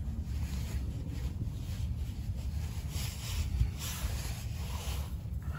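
Faint, irregular rubbing and scraping from hand work on a car's front disc brake parts over a low steady rumble, with a sharper knock about three and a half seconds in.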